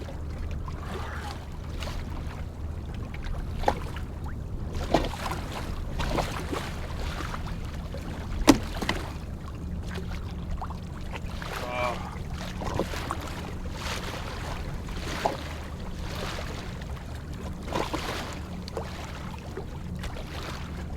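Scattered knocks and handling clatter on a fishing kayak on open water over a steady low hum, with one sharp knock about eight and a half seconds in.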